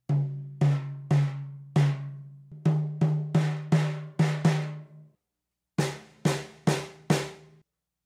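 Cheap Ludwig Junior 12-inch kids' snare drum, with a Remo coated Emperor batter head and the snares on, struck with drumsticks in single strokes while being tried at a slightly higher tuning. The hits quicken to about three a second, pause briefly about five seconds in, then four more follow. Each hit has a snare buzz and a low pitched ring that hangs on.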